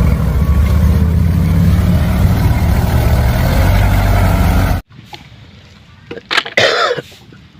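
A loud motor-vehicle engine sound, running with a low rumble and cutting off abruptly about five seconds in, followed by a few short knocks near the end.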